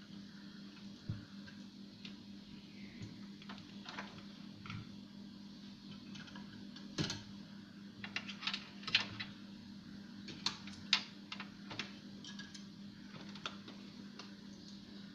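Irregular light clicks and taps, several in quick succession around the middle, over a steady low hum.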